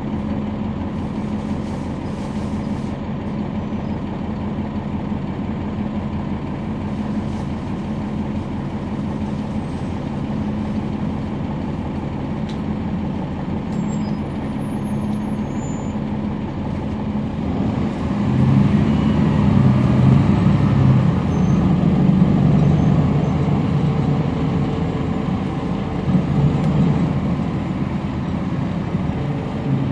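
The Cummins ISL9 diesel engine of a NABI 40-SFW transit bus, heard from on board, running with a steady low drone. From about 18 seconds in it grows louder and its note shifts as the bus works harder under way.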